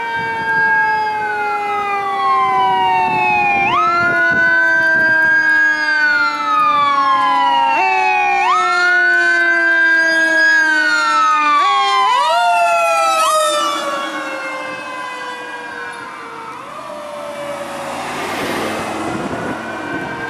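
Fire department ladder truck's siren wailing as the truck approaches and passes, each wail rising quickly and falling slowly about every four seconds. The pitch drops as it goes by about 13 seconds in, then the siren fades as it drives away, with a brief hiss near the end.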